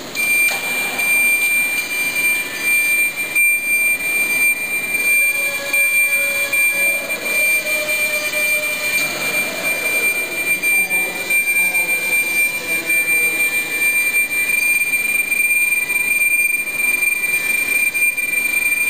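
Forklift running as it is driven and manoeuvred through a course, its drive whining with a steady high tone throughout and a pitch that rises and falls in the middle.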